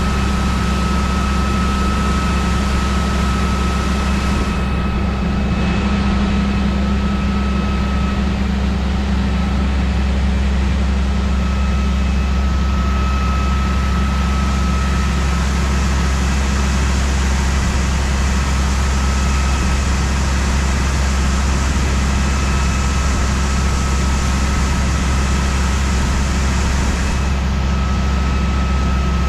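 Heavy diesel machinery running steadily, a loud low drone with a faint high whine that fades in and out.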